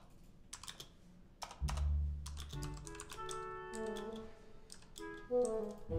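Scattered clicks of typing on a computer keyboard. Film score comes in about one and a half seconds in with a low bass note, joined a second later by a melody of held notes.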